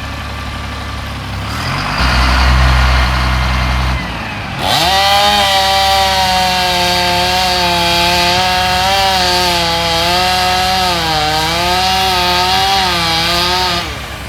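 A chainsaw revs up sharply about four and a half seconds in and runs at high speed for about nine seconds, its pitch dipping and recovering as it cuts, then winds down near the end. Under it a steady low engine hum runs throughout, with a louder low rumble from about two to four seconds in.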